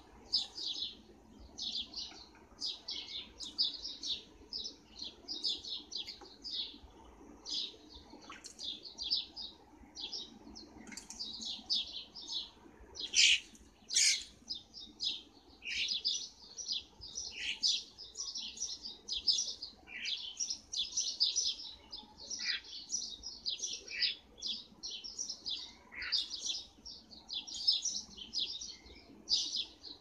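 Garden birds chirping in a fast, continuous chatter of short high chirps, with a couple of louder calls about halfway through.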